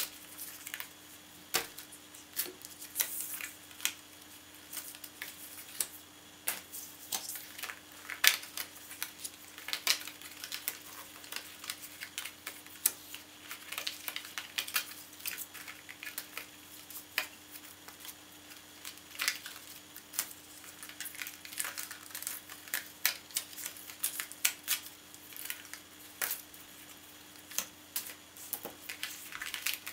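Pre-cut cardstock pieces being pushed out of a die-cut sheet and bent along their pre-folded creases: irregular crisp clicks and crackles of card, several a second.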